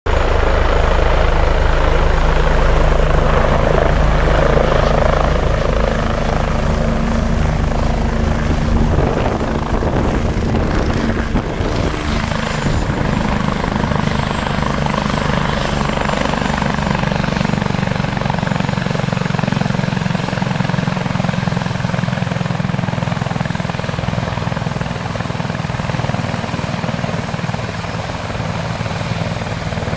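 Eurocopter EC145 rescue helicopter running on the ground with its rotor turning. The rotor and turbine noise is loud and steady, with a thin high turbine whine above it that shifts slightly about twelve seconds in.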